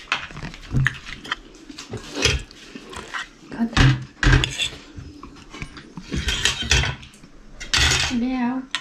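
Forks and spoons clinking and scraping on ceramic plates as people eat, in scattered irregular clicks.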